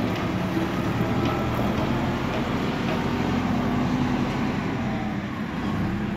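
Diesel engine of a Hidromek backhoe loader running steadily under load as the machine drives forward pushing soil with its front bucket.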